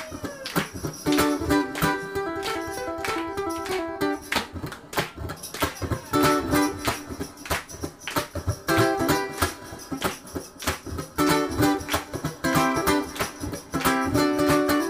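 Solo ukulele playing live: a plucked melody over chords, with frequent sharp percussive strokes.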